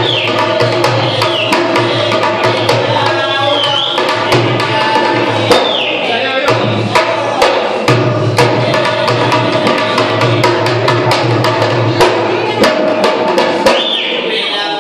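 Live music for a Rajasthani string-puppet show: a hand drum played in a quick, steady rhythm over held tones, with high swooping squeals a few times.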